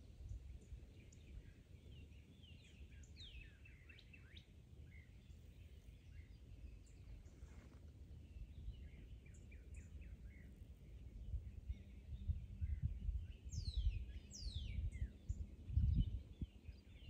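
Birds calling in the background, quick falling whistled notes in a short series about three seconds in and again near the end, over a low gusty rumble of wind on the microphone that grows heavier in the second half.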